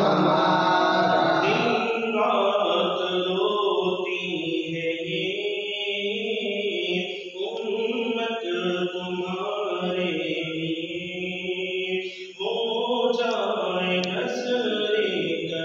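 Unaccompanied male voice chanting Salat-o-Salam, a devotional salutation to the Prophet, in long drawn-out notes with a brief pause for breath about twelve seconds in.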